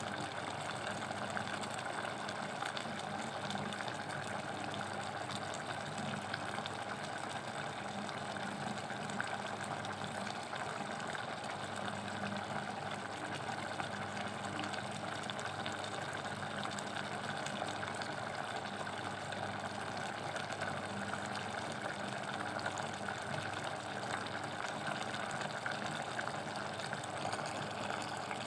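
Pot of chicken apritada simmering on the stove: a steady hiss.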